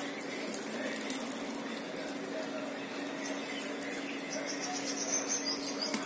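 Background murmur of voices over a steady low hum, with a quick run of high chirps near the end.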